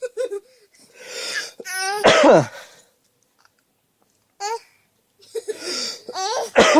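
A young child copying a cough: several fits of forced coughing, some with the child's high voice sounding through the cough.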